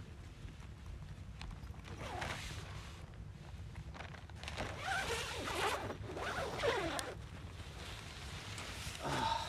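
Tent door zipper being pulled open from inside in several long strokes, about two seconds in and again between about four and a half and seven seconds in, with a short further stroke near the end.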